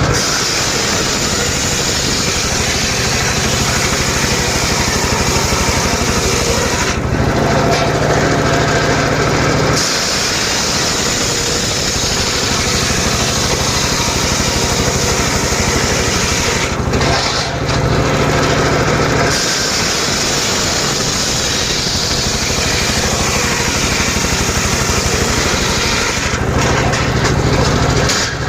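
Engine-driven mobile circular sawmill running continuously while sawing rain tree (trembesi) wood into planks. The sound changes three times for two or three seconds each, its higher hiss dropping away while the low engine hum strengthens.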